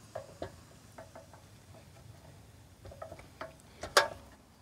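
Scattered light metallic clicks and taps as a metal conduit pipe is gripped and twisted by hand in the hub on top of a meter base, being worked loose after it was driven in too far. One sharp click about four seconds in is the loudest.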